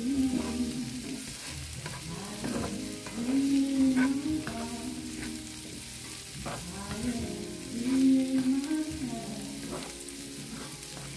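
Diced potatoes, onions and bell peppers sizzling in oil in a cast-iron skillet, with a spatula scraping and tapping against the pan as they are stirred. A low melody wavers in and out over the frying.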